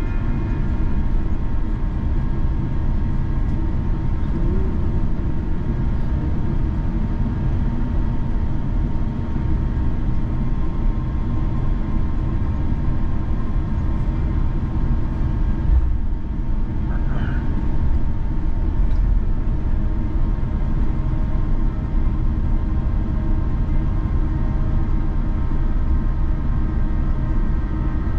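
Airbus A350-900 cabin noise while rolling on the ground after landing: a steady low rumble from the wheels and airframe under a faint steady whine from the Rolls-Royce Trent XWB engines at low power. A brief thump comes a little past halfway.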